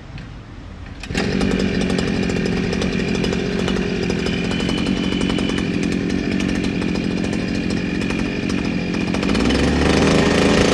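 Petrol brush cutter with a toothed saw blade fitted, coming up to speed about a second in and then running steadily at high revs, revving higher near the end. It is loud from its high speed of about 6000–7000 rpm, which is normal rather than a fault.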